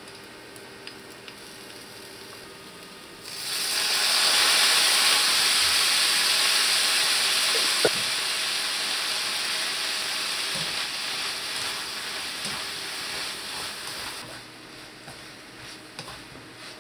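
Stir-fry of shishito peppers and dried anchovies sizzling in a frying pan. About three seconds in, a loud hiss starts up as seasoning goes into the hot pan, then dies down slowly over the next ten seconds, with a single click near the middle.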